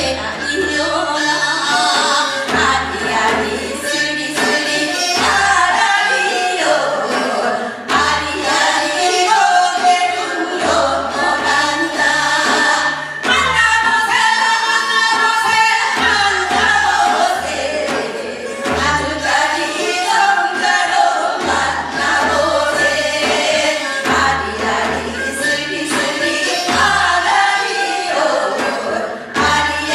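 Several voices singing a Gyeonggi hwimori japga together, a fast patter-style Korean folk song delivered in quick, continuous phrases.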